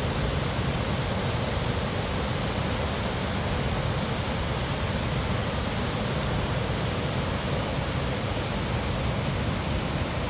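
Steady rush of falling water from a cascading waterfall.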